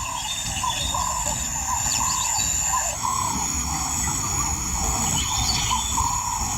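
Bush ambience: a short rising-and-falling call repeating about twice a second over a steady high insect trill and a low rumble.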